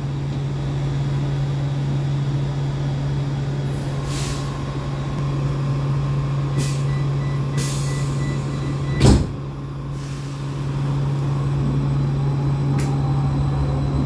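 Vienna U-Bahn SGP Type U2 car standing at a platform, its equipment giving a steady low hum with a few short hisses of air. A rapid high beeping of the door-closing warning comes a little past halfway, and the doors bang shut about nine seconds in.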